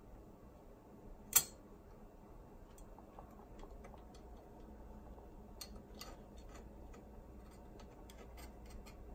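Small clicks and ticks of metal and plastic parts being handled and fitted with a screwdriver while a cassette deck mechanism is reassembled. One sharp, loud click comes about a second and a half in, and scattered lighter clicks follow through the rest.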